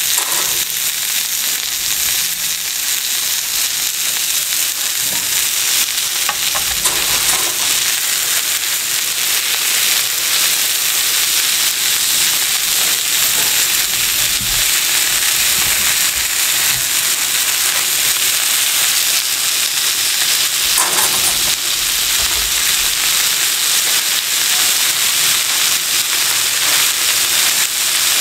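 Sizzler plate sizzling steadily: hot oil, sliced onions and tandoori chicken pieces hissing on the stove-heated iron plate.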